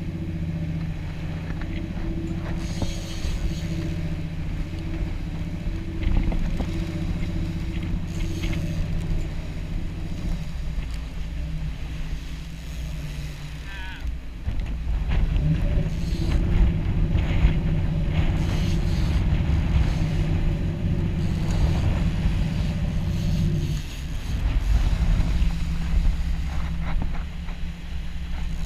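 Sportfishing boat's engines running steadily under way, with wind and wake noise. The engine note changes about ten seconds in and gets louder from about fifteen seconds.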